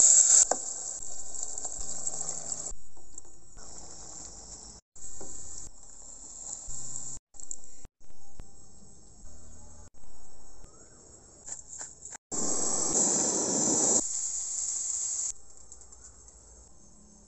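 Coconut milk sizzling as it is poured into a hot pan of curry paste, followed by a string of short kitchen clips joined by abrupt cuts, each carrying a steady high hiss. A louder stretch of noise comes about twelve seconds in.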